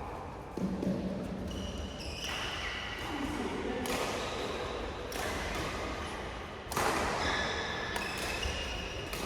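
Sneakers squeaking on an indoor badminton court during play, several short high squeals, with some voices in the hall.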